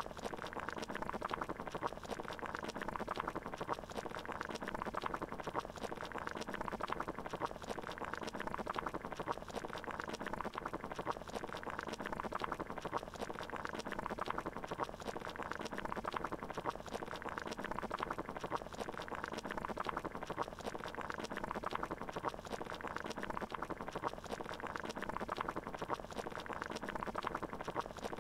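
Water boiling, a steady dense bubbling.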